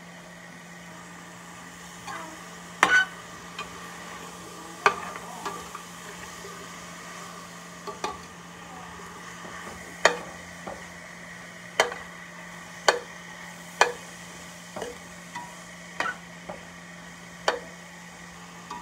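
Metal slotted spoon scraping and knocking against a stainless steel pan, about a dozen irregular clacks, as sautéing vegetables are stirred, over a steady faint sizzle.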